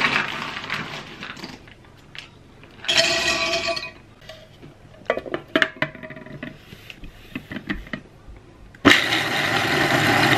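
Whole almonds rattling as they are poured from a plastic bag into a small food processor's plastic bowl, then a few clicks as the lid is fitted. About nine seconds in, the food processor starts with a loud, steady whir as its blade grinds the almonds into flour.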